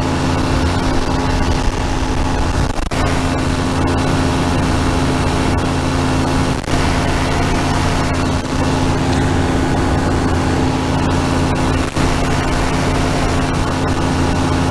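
Powered parachute's engine and propeller running steadily at cruise power, a constant drone with an even pitch.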